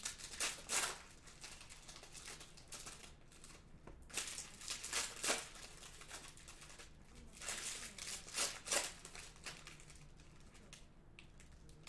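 Foil wrappers of 2020 Select NFL Hybrid trading-card packs crinkling and tearing as they are handled and ripped open, in short irregular bursts.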